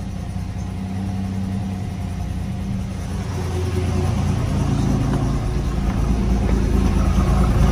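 1987 Buick Grand National's turbocharged 3.8-litre V6 idling steadily shortly after a cold start, getting louder toward the end. The idle is smooth and even, which the owner takes to mean no vacuum issues and no idling up and down.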